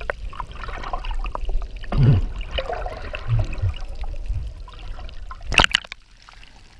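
Muffled underwater gurgling and bubbling from a person thrashing in the sea, heard through a submerged action camera, with a few dull low thuds. About five and a half seconds in there is a sharp splash as the camera breaks the surface.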